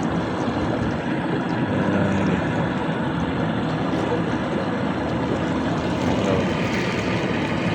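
Small engine running steadily while travelling, a constant drone without changes in pace.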